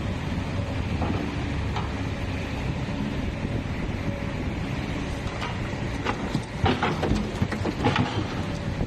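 Komatsu backhoe loader's diesel engine running steadily, with a run of sharp metallic clanks and knocks from about six seconds in.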